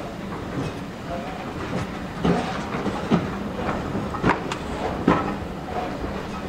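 Heritage railway passenger carriage running slowly over the track, with a steady rumble and four sharp wheel knocks over the rail joints in the middle.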